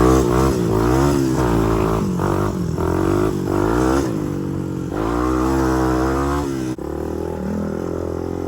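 Honda TRX250X ATV's single-cylinder four-stroke engine being ridden, its pitch rising and falling again and again with the throttle. About seven seconds in it drops to a steadier, lower note.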